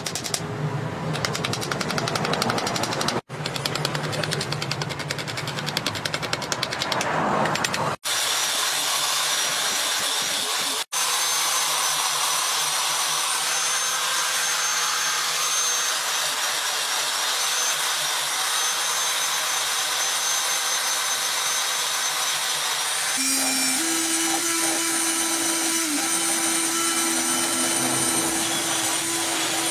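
Cordless drill running with an abrasive bit, sanding a knife's wooden handle: a steady motor whine with grinding noise. It comes in several takes, broken by short sudden dropouts at about three, eight and eleven seconds.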